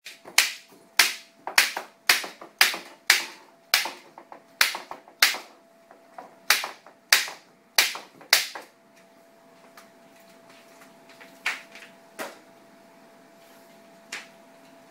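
Staple gun firing a quick run of about a dozen sharp shots, roughly two a second, as canvas is fastened to a stretcher frame. After a pause come three more single shots spaced a second or two apart.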